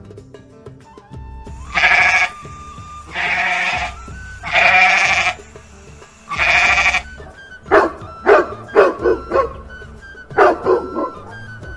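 A goat bleating four times, each bleat drawn out for most of a second, followed by a dog barking, a quick string of short barks in two bursts, over soft background music.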